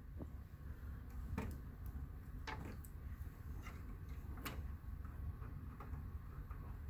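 Irregular light clicks and knocks of the keyboard's USB cable being handled and checked at its plug, a few seconds apart, over a low steady hum.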